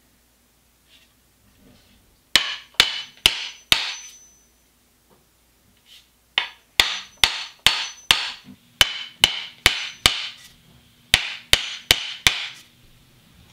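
A hammer striking the butt end of a wooden axe handle with the head hanging below, seating the True Temper Flint Edge Kelly Works axe head onto the handle. The sharp knocks come about two a second in three runs, four, then about nine, then four, each with a brief ring.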